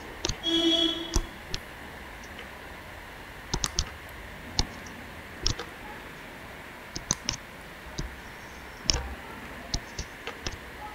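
Stylus tip clicking and tapping on a drawing tablet as lines are drawn, in irregular sharp clicks a second or so apart, some in quick pairs. A short hum-like tone sounds about half a second in.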